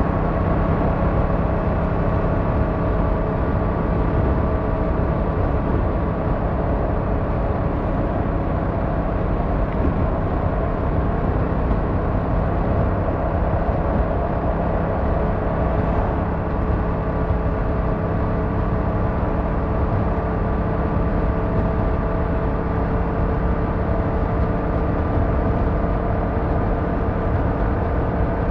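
Car driving at a steady speed: a continuous hum of engine and tyre noise with steady engine tones that drift slightly in pitch.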